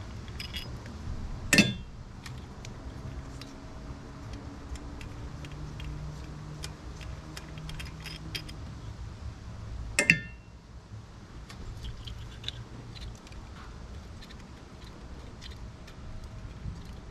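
Hand tools, a ratchet and socket extension, clicking and clinking against metal parts of the engine during spark plug removal. Two louder metallic clanks come about a second and a half in and about ten seconds in, over scattered small clicks.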